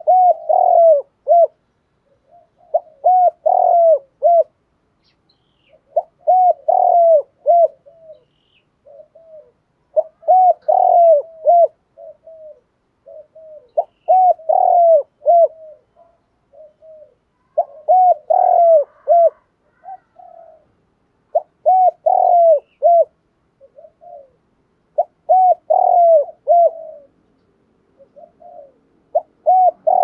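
Spotted dove cooing its song: a phrase of several loud coos repeated about every four seconds, with fainter coos between the phrases.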